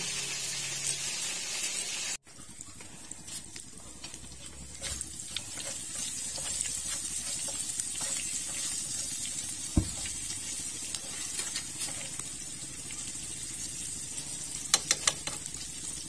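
Food sizzling in oil in a frying pan as it is stirred with wooden chopsticks, starting about two seconds in, with small clicks and scrapes of the chopsticks on the pan. There is one dull knock around the middle and a few quick sharp taps near the end.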